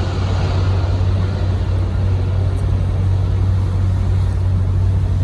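Harbour cruise boat's engine running with a steady low drone, with a faint noisy hiss above it.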